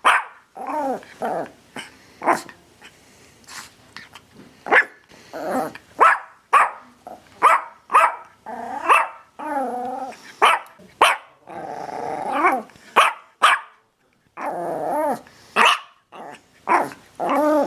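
Dogs barking over and over, a mix of short sharp barks and longer drawn-out growling barks, with brief pauses between bursts.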